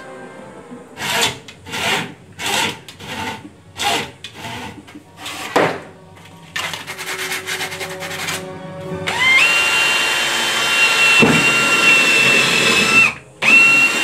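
A run of short rasping strokes, about one and a half a second, then a cordless drill spinning up with a rising whine and running steadily for about four seconds before stopping, with a short second burst of drilling near the end.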